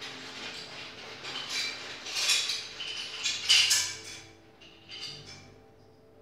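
Plastic hair-clipper guide combs clattering against each other and onto a tile floor as they are taken out of a fabric pouch, along with rustling of the pouch. The clatter is loudest between about two and four seconds in.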